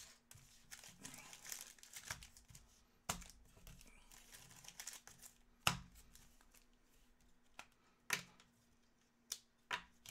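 Foil trading-card pack wrappers crinkling as a stack of packs is shuffled and re-sorted by hand, with sharp taps every few seconds as packs are knocked down on a wooden desk, the loudest about six and eight seconds in.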